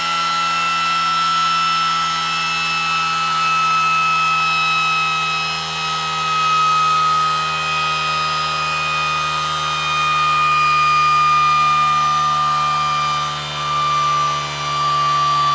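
Pulse motor spinning at high speed with a steady multi-tone whine whose pitch slowly falls: it is coasting down while running from supercapacitors.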